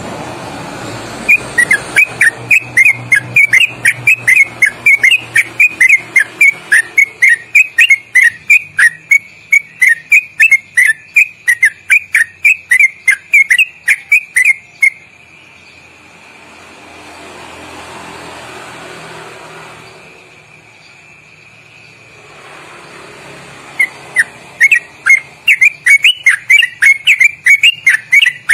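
Yellow-vented bulbul singing its long rapid 'ropelan' run: short, loud, swooping whistled notes at about three a second. The run stops about halfway through and starts again near the end.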